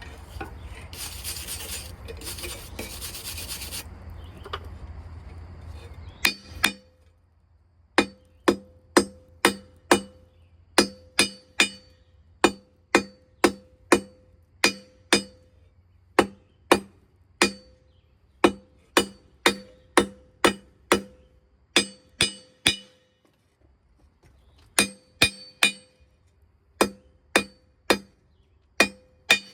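Steady roar of a forge burner that cuts off about six seconds in. It is followed by hammer blows on steel over an anvil, each ringing out sharply, about two a second with a short pause near the end.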